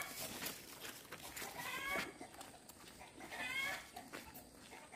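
Chickens calling in two short bouts of repeated high squawks, about two seconds in and again around three and a half seconds.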